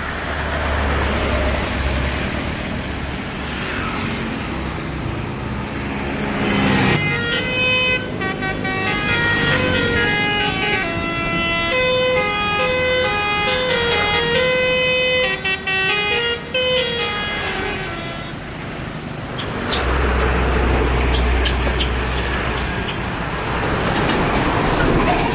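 A bus's telolet horn, a multi-tone musical air horn, playing a tune of stepped notes for about ten seconds, starting about seven seconds in. Road and engine noise of the traffic comes before and after it.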